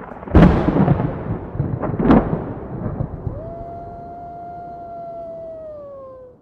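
Logo sting sound effect: a loud boom with a long rumbling tail, a second sharp crack about two seconds in, then a held tone that sinks in pitch near the end.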